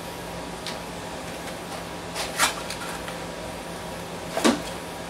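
Small cardboard box and kit parts being handled, giving a few short rustles and taps, the clearest about two and a half and four and a half seconds in, over a steady low hum.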